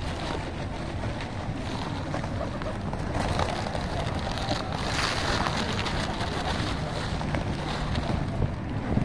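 A large flock of feral pigeons feeding close by: wings flapping as birds flutter up and land, with many small taps, over wind rumbling on the microphone. A louder flurry about five seconds in.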